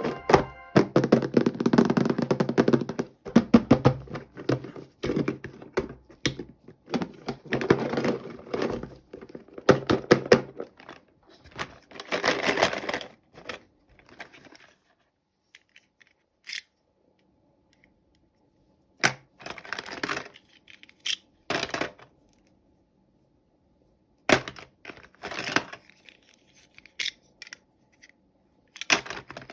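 Hands handling toy packaging and small plastic pieces: dense rustling, tearing and clicking for roughly the first half, then only scattered clicks, taps and short rustles with quiet gaps between them.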